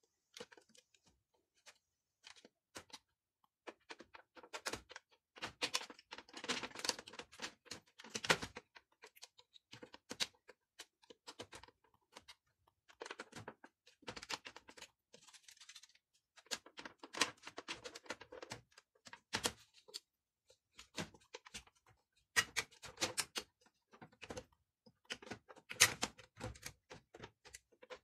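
Irregular clicks, taps and rattles of plastic parts being handled and worked loose inside the opened mechanism of a Samsung 3-disc changer, with a few sharper clacks.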